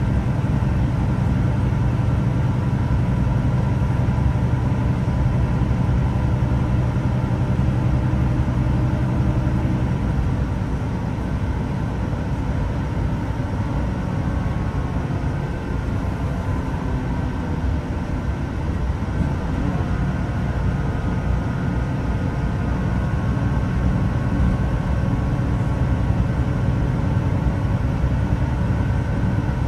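A Class 166 diesel multiple unit running along, heard from inside the carriage: the underfloor diesel engine drones steadily over the rumble of the wheels on the rails. The engine note eases and gets a little quieter about ten seconds in, then carries on steadily.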